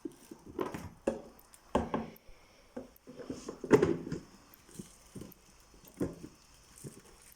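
Plastic parts of a fridge's water-dispenser tank being handled and fitted together: irregular light knocks and clacks, the loudest just past halfway.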